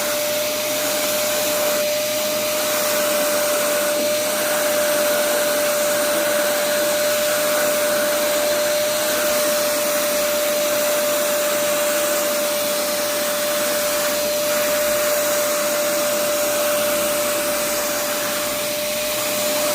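Vacuum cleaner running steadily, a constant rushing noise with a steady whine through it.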